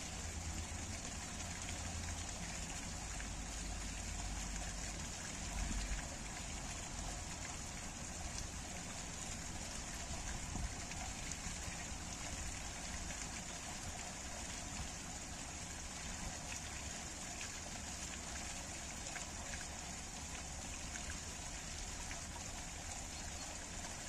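Spring water pouring from a spout in a stone wall and splashing onto a heap of rocks, running off along a stone channel: a steady splashing trickle, with a low rumble underneath.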